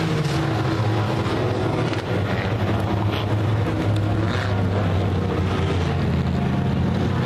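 Engines of several U-car class dirt-track race cars running as the cars circle the oval, a steady low drone that grows a little louder about four seconds in as cars pass.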